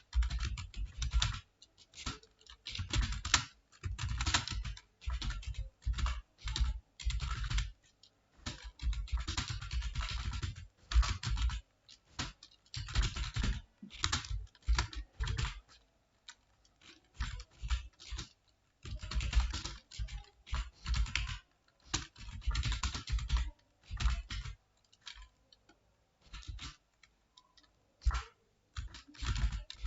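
Computer keyboard typing: rapid runs of key clicks in bursts of a second or two, broken by short pauses.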